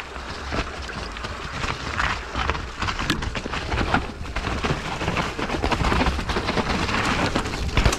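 Mountain bike ridden over a rough trail: a dense, irregular run of clicks and rattles over a steady low rumble.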